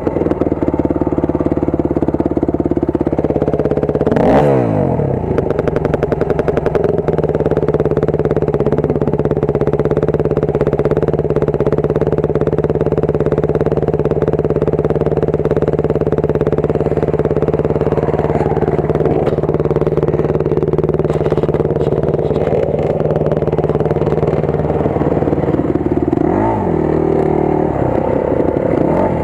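Enduro dirt bike engine running at a steady speed close to the microphone, with a brief change in engine speed about four seconds in and again near the end.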